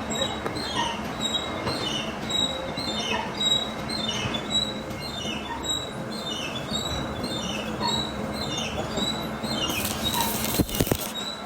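Metalworking machinery running steadily with a rhythmic squeak repeating a little under twice a second. Near the end comes a short burst of hiss and a few sharp knocks.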